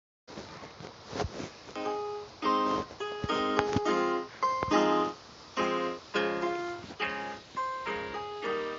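Music: a song's intro of keyboard chords, piano-like, played in repeated strokes, with a few sharp percussive hits. It starts about a quarter second in.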